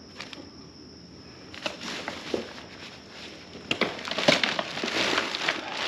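Plastic wrapping crinkling and rustling as parts are handled and pulled out of a tent's carry bag. It starts as a few scattered rustles and grows louder and denser over the last two seconds.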